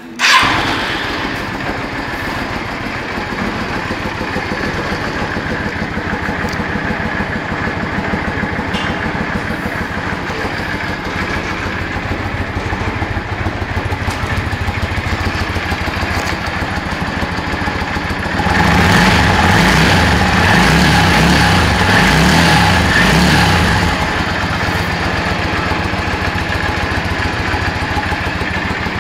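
1999 Yamaha XVS650 V-Star's air-cooled V-twin engine running at a steady idle, louder for about five seconds past the middle.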